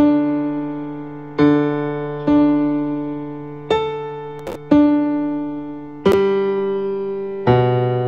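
A virtual grand piano in Ableton Live plays about seven struck notes, one every second or so, each dying away before the next. They are MIDI notes triggered by the collisions in the TouchDesigner patch, and the pitch shifts from note to note as the note numbers are changed.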